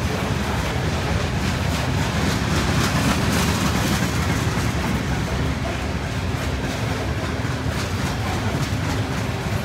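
Loaded coal hopper cars of a freight train rolling past close by: a steady rumble of steel wheels on rail with rapid clickety-clack over the rail joints.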